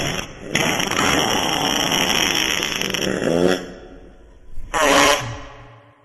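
Wet fart sound effect: a long fart of about three seconds that ends in a brief pitched squeak, followed by a second short burst near the end.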